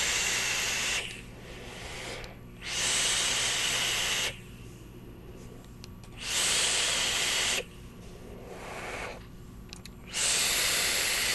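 Repeated draws on a box-mod e-cigarette: a loud, airy hiss of air and vapour pulled through the atomizer. There are four draws of one to two seconds each, with softer breathy exhales of vapour between them.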